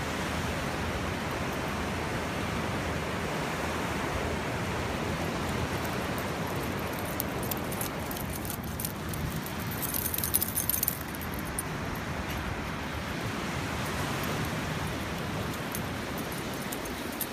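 Steady rush of ocean surf and wind, with a brief bright rattle about ten seconds in.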